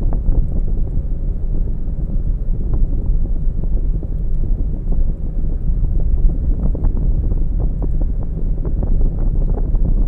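Car driving along a road, picked up by an in-car camera: a steady low rumble of road and tyre noise with frequent small knocks and ticks.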